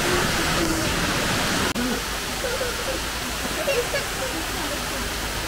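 Steady rushing of a waterfall, with faint voices of people in the background. The sound cuts out for an instant about two seconds in.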